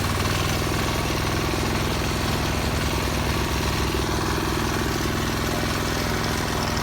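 Diesel engine of a Kawasaki BM91 rotary-disc grass mower running steadily with an even, low chugging beat.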